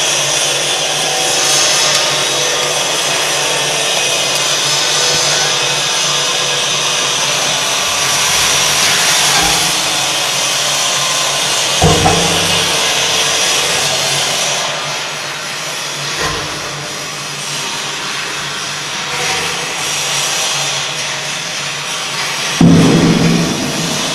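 Carbonization stove machine running with a loud, steady rushing noise like a blower, under a faint hum. A few low knocks cut through it, the loudest near the end.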